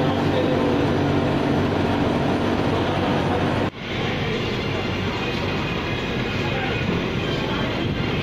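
Steady running noise of a Stefab flatwork ironer with a hum of several steady tones. About three and a half seconds in it breaks off and a duller, steady laundry-machinery noise without the clear tones takes over.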